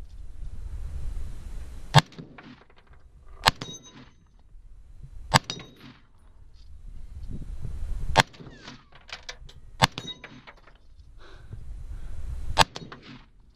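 Six .308 rifle shots from an AR-10, fired at uneven intervals of one and a half to three seconds. Each is answered by a ringing clang from a 10-inch AR-500 steel gong being hit.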